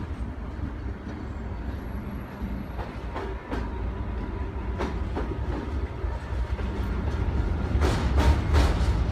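Train running past on the track: a low rumble that grows louder as it comes nearer, with wheels clacking over the rail joints, a couple of single clacks and then a quicker run of them near the end.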